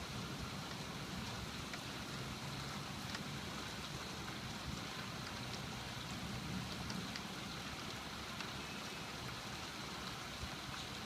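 Steady rain falling during a thunderstorm, an even hiss with scattered faint drop ticks.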